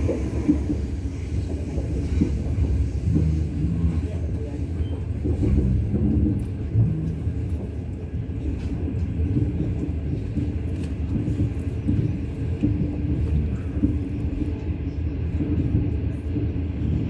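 Running noise heard inside a moving 25T passenger coach: a steady low rumble of the wheels and bogies on the rails, with scattered faint clicks.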